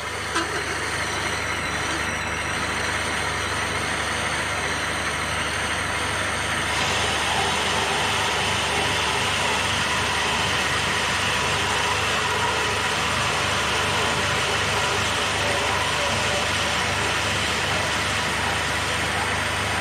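Metal-cutting lathe running slowly with a hole saw cutting through metal plate: a steady machine hum and whine under the hiss of the saw teeth, starting abruptly and growing harsher about seven seconds in.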